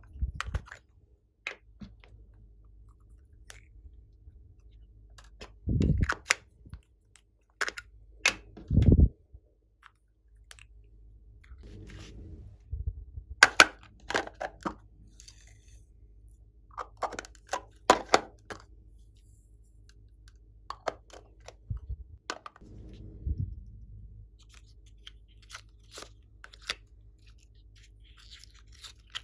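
Glossy slime being squished and poked by hand, giving scattered sharp crackling clicks and pops, with a few duller, deeper squelches.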